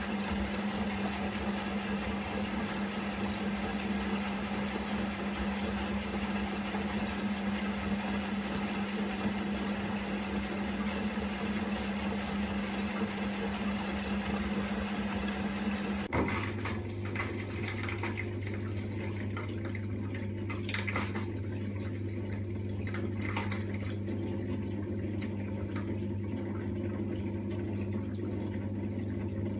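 Washing machine running: a steady motor hum that about halfway through switches abruptly to a lower hum with water sounds and a few faint knocks.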